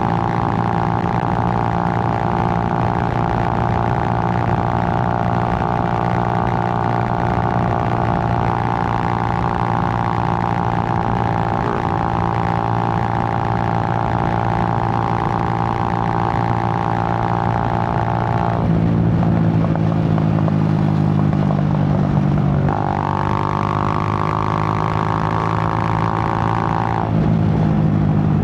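Suzuki GN125's single-cylinder four-stroke engine running under way at a steady note. About two-thirds of the way in the note changes abruptly, then rises gently, and it shifts again near the end.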